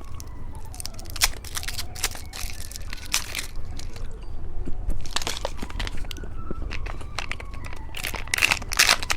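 Close-up crinkling and crunching of candy and its plastic wrappers: a run of sharp clicks and short rustling bursts, loudest about five seconds in and again near the end.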